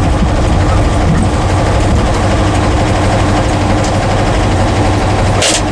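A 1966 Porsche 912's air-cooled flat-four engine idling steadily; the owner says it still needs carburetor adjusting. A short burst of noise comes near the end.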